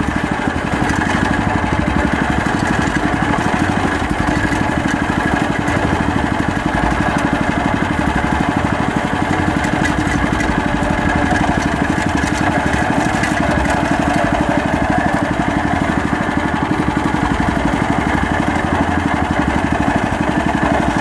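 A small wooden outrigger fishing boat's engine running steadily with a fast, even pulse.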